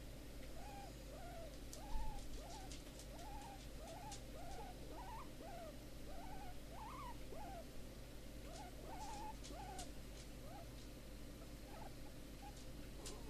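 Guinea pig giving a run of soft squeaks, each rising and falling, about two a second, tailing off near the end, while she is being rubbed: a sign that she is content. A brief knock about two seconds in.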